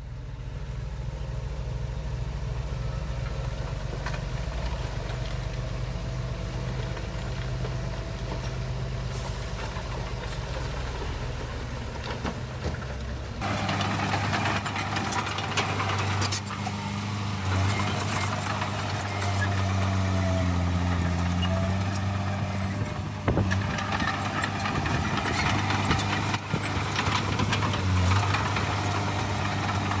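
Heavy earthmoving machinery's diesel engine running steadily. The engine sound changes abruptly about halfway through, to a stronger, even hum with a brief dip in pitch a little later.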